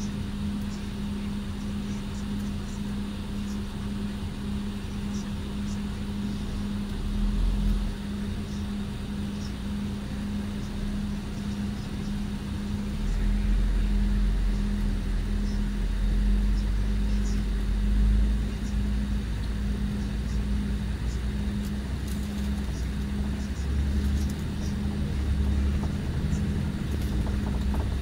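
Mercedes-Benz O-500RSD coach's diesel engine running, with a constant hum and a low rumble that swells a few times, longest in the middle.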